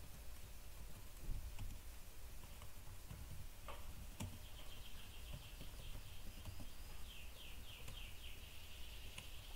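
A few faint computer keyboard clicks from typing. From about four seconds in, a small bird chirps in the background, with a quick run of high descending chirps near the end.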